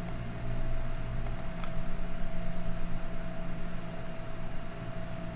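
A few light computer mouse clicks, one near the start and two about a second and a half in, over a steady electrical hum with a constant high whine.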